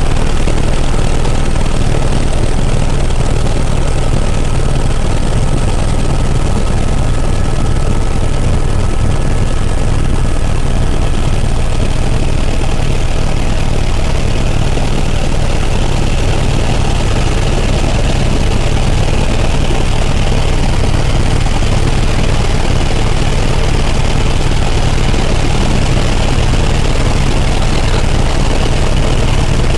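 Helicopter in flight: steady engine and rotor noise, a loud low drone that holds even throughout, with faint steady higher tones above it.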